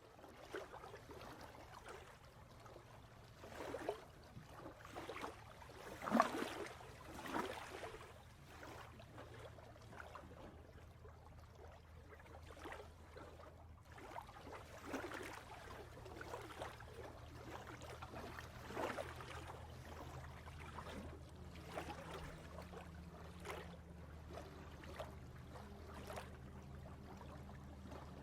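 Irregular splashing and trickling water over a low steady hum, with the loudest splash about six seconds in.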